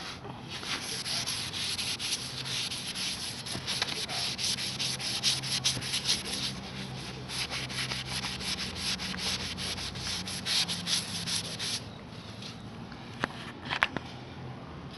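Green scouring pad of a kitchen sponge scrubbed hard over a tarnished brass kickplate, a dense abrasive rubbing made of many quick strokes. The scrubbing stops about three seconds before the end, leaving a couple of sharp clicks.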